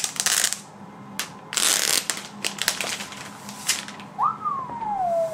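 Plastic protective wrap crinkling and a new MacBook Pro being handled out of its box: a run of sharp clicks and taps, with a louder rustle about a second and a half in. Near the end comes a single high whine that rises briefly, then slides down.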